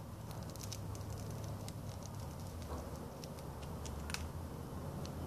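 Homemade salt-water high-voltage capacitors still discharging: irregular small spark snaps and crackles, the sharpest about four seconds in, over a low steady hum.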